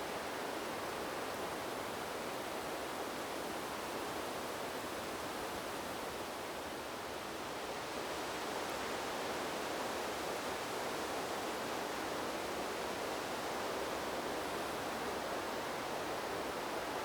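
Wind blowing through the leaves of trees: a steady rustling rush that eases a little about seven seconds in and then swells back up.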